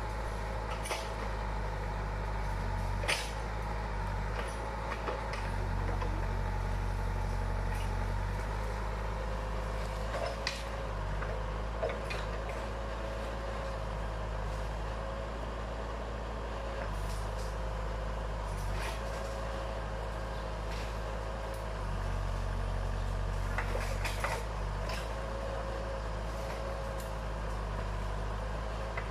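Backhoe's diesel engine running steadily under work, with a thin wavering whine and scattered sharp metallic clanks.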